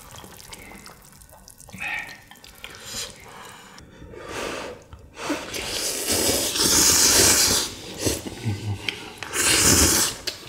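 Wet eating sounds of kimchi stew broth being slurped: faint clicks at first, then a long noisy slurp of about three seconds from about halfway in, and a shorter one near the end.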